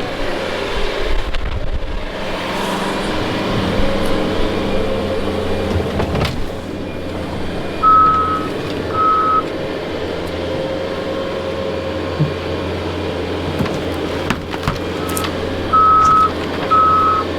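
Skid steer loader engine running steadily while it backs up, its reversing alarm beeping twice about eight seconds in and several more times near the end, with a few clanks in between.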